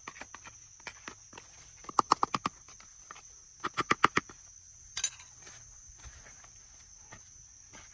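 Runs of quick, sharp clicks and taps from hand work: about five in quick succession two seconds in, another run about four seconds in, and a single louder snap about five seconds in. Under them is a steady high-pitched insect drone.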